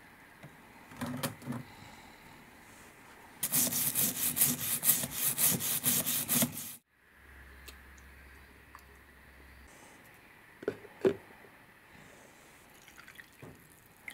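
Plastic screwdriver handle swished back and forth in a tub of soapy water: about three seconds of quick, even splashing that stops abruptly. Later come two sharp knocks.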